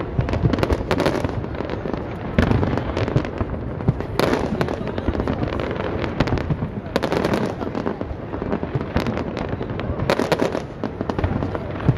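Aerial fireworks bursting in quick succession: a constant run of overlapping bangs and crackles, with sharper reports about four, seven and ten seconds in.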